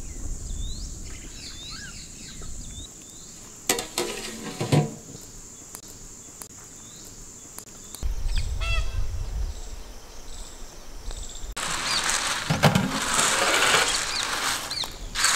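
Birds chirp over a steady high insect drone, with a couple of sharp knocks about four seconds in. In the second half comes a loud steady hiss of water boiling hard in a large metal pot over a wood fire, as the lid comes off the steaming pot, ending in a short sharp knock.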